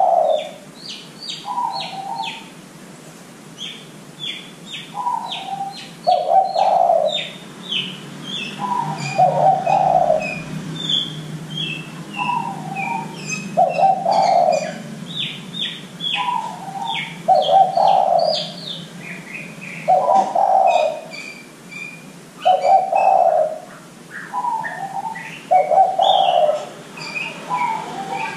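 Derkuku doves cooing in repeated two-part phrases, a higher note then a lower drawn-out one, about every three seconds, over steady high chirping and twittering of small birds.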